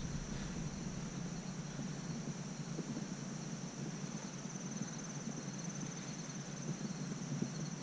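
Insects in the grass keep up a steady, high-pitched chorus. Underneath are a low rustle and a few soft thuds from someone walking through the grass.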